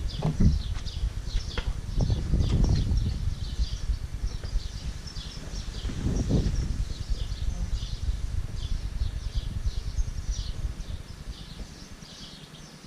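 A bird calling with short high chirps, several a second, over a low rumble on the microphone that swells about two seconds in and again about six seconds in.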